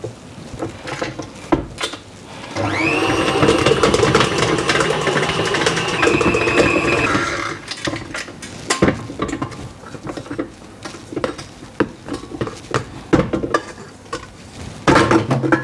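Stand mixer kneading bread dough: the motor winds up in pitch, runs steadily for about five seconds and stops. After that come scattered knocks and clicks.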